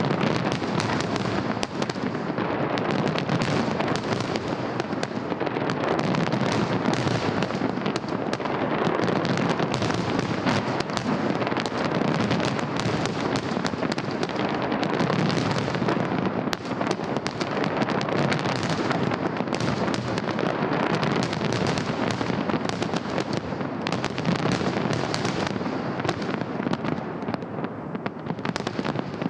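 Fireworks salute: a dense, unbroken barrage of bangs and crackling, easing slightly near the end.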